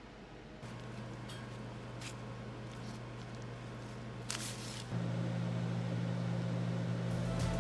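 Steady electric hum of a running kitchen appliance motor, starting under a second in and getting louder about five seconds in, with a few light clicks.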